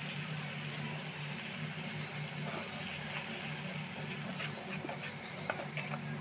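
Tomato, onion and cashew paste sizzling in hot oil in an aluminium kadai. In the second half a spatula stirs it, scraping against the pan with a few clicks.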